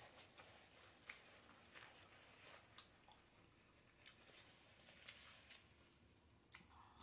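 Faint chewing of a mouthful of food, with soft lip smacks and mouth clicks at irregular moments.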